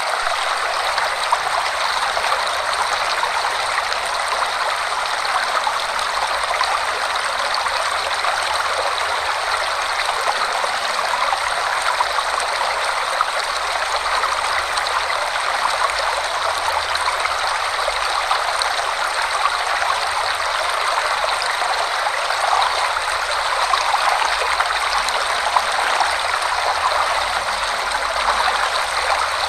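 Forest waterfall, water pouring and rushing steadily.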